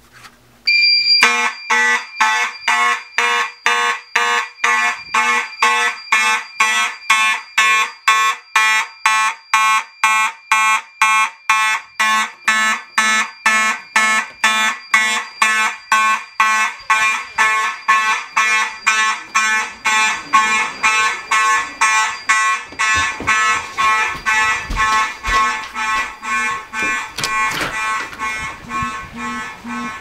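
Simplex fire alarm horns (4251-20, 2901-9838 and 4903-9217) sounding together in march time, about two blasts a second, insanely loud. About two-thirds of the way through they become fainter and more distant, heard from outside the building.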